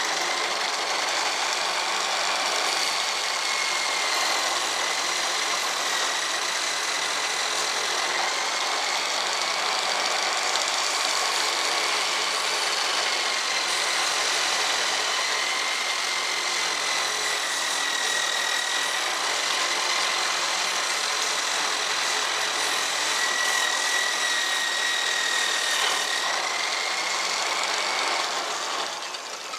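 Electric drill running at high speed, driving a homemade belt sander whose sanding belt runs over two wooden pulleys. It makes a steady high whine that wavers slightly in pitch over a rushing noise, and it winds down near the end.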